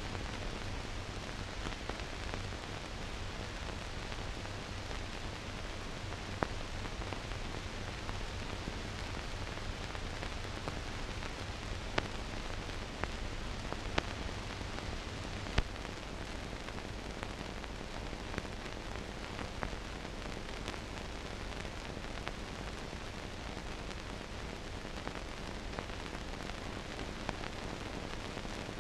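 Steady hiss with a low hum underneath and a few sharp clicks: the noise floor of a silent archive film transfer, with no recorded sound of the scene.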